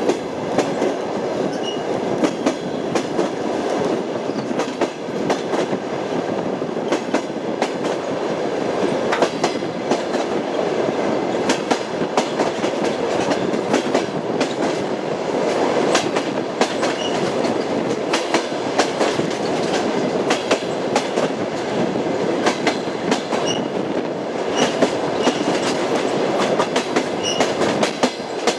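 Moving train's wheels clacking over rail joints above a steady running rumble, with a few short high squeaks.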